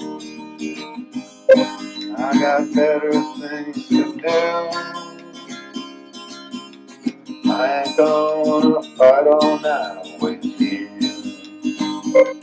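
Acoustic guitar strummed in a steady rhythm, with a violin playing melody phrases over it that swell in about two, four and eight seconds in.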